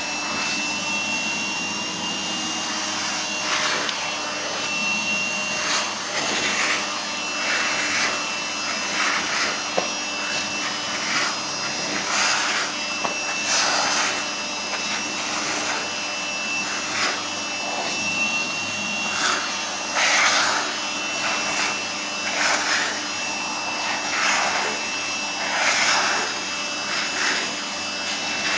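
Vacuum cleaner running steadily, its motor hum carrying a thin steady whine, while its hiss swells roughly once a second as it is stroked over a cat's fur.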